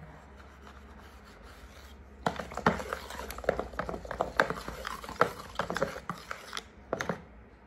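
Paint being stirred with a stick in a plastic paint bucket. After a quiet first two seconds there is irregular scraping and knocking of the stick against the bucket through thick paint clumpy with glitter.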